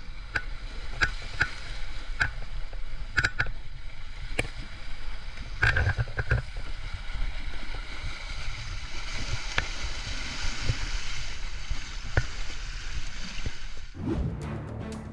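Water sloshing over a steady low rumble, with scattered sharp knocks. Music with a drum comes in near the end.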